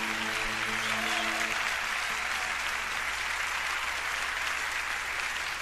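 Concert audience applauding, with the band's last held chord ringing under it and stopping about a second and a half in.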